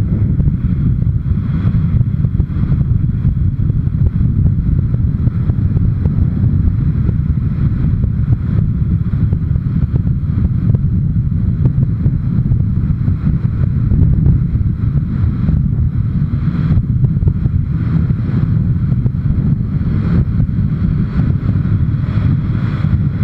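Wind rushing over the microphone of a camera on a moving motorcycle: a loud, steady rumble that covers the bike's engine and road noise.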